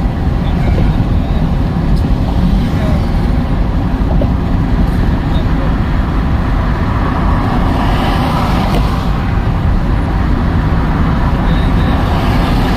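Steady low rumble of engine and road noise inside a moving car's cabin, with a brief swell of higher hiss about eight seconds in.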